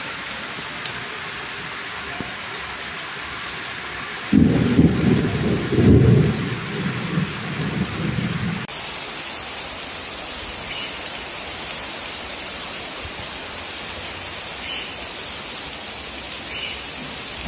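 Heavy rain pouring steadily onto a paved street. About four seconds in, a loud, uneven rumble of thunder lasts for about four seconds. After that comes an abrupt change to a steady rain hiss.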